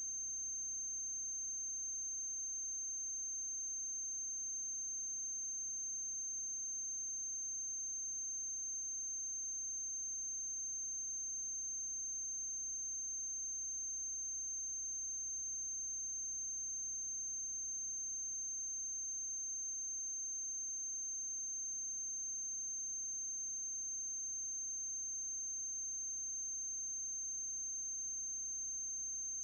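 Steady high-pitched electrical whine, a single unchanging tone, over a faint low mains hum and hiss: noise on the soundtrack of a silent film transfer, with no sound of its own.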